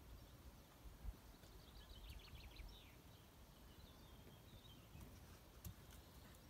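Near silence: faint outdoor background noise. About two seconds in comes a faint, rapid run of high ticks, with a softer, shorter trill a couple of seconds later.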